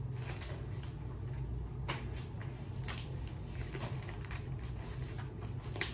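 Steady low room hum with a few faint, brief rustles and soft clicks scattered through it.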